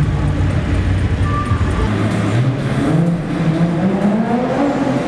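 A car engine accelerating, its pitch rising steadily over the last three seconds. Before that comes a heavy low bass that cuts out about two seconds in.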